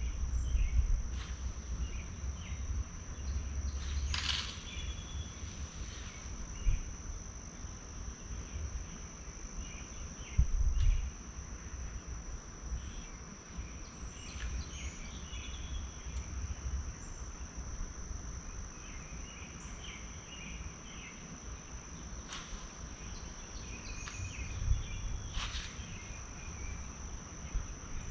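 Insects singing in one steady high-pitched drone, with scattered bird chirps over a low rumble. Two sharp clicks come about four seconds in and near the end.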